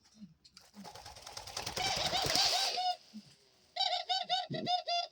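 Pet doves calling: runs of short, quickly repeated arched notes, about five a second, in two bouts. Under the first bout, about a second in, there is a rustling flutter that grows louder and then stops.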